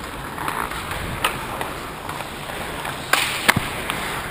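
Ice hockey play at close range: skates scraping the ice, with sticks and puck clacking in short sharp knocks. A brief hissing scrape comes about three seconds in, and the loudest knock follows half a second later.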